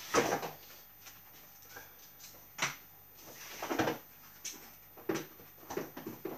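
Camping stove kit being taken out of a carry bag and handled on a kitchen worktop: bag rustling and irregular knocks and clunks as pieces are set down, the loudest near the start and about four seconds in.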